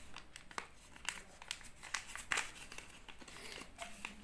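Sheet of white paper crinkling in the hands as it is folded and handled, a string of short crackles with the loudest a little past halfway.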